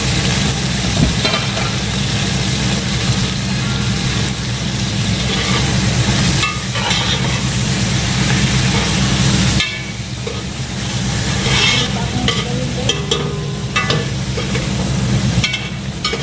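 Food sizzling in a pan on a gas stove while a utensil stirs and scrapes it, over a steady low hum. The sizzling hiss drops abruptly about ten seconds in, and scraping strokes carry on after.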